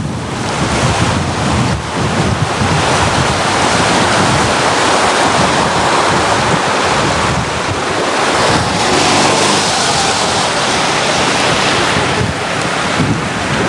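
Loud steady rush of floodwater mixed with wind buffeting the microphone, with a faint engine hum partway through.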